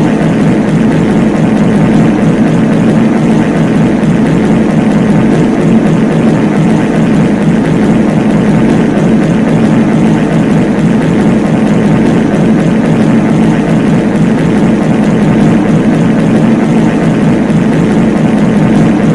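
Many copies of a reverb fart sound effect stacked over one another, merging into a loud, unbroken drone centred low.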